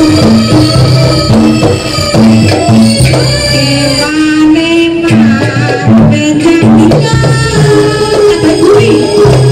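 Loud jaranan ensemble music: hand drums (kendang) beat a fast, repeating pitched pattern with a wavering melody line above.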